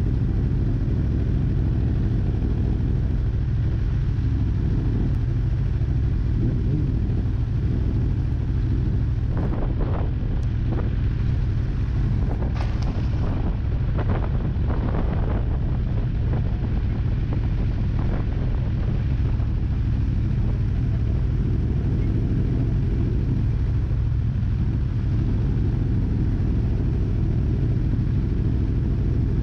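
Motorcycle engine idling steadily, with a few brief sharper noises in the middle.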